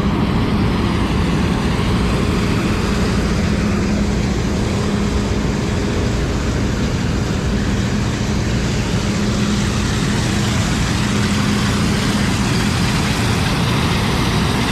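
Heavy farm machine's engine running steadily at a constant speed, with an even hum and no change in pitch.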